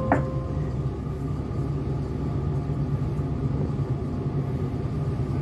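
Steady low drone of a platform supply vessel's engines and machinery, heard inside a cabin. A short pure tone at the very start fades out within half a second.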